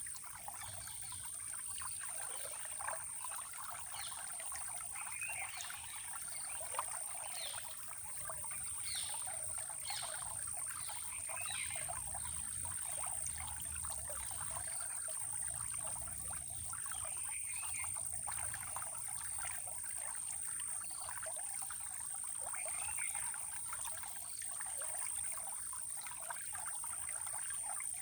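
Running water trickling and babbling steadily, with short bird chirps every few seconds and a steady high-pitched whine above it.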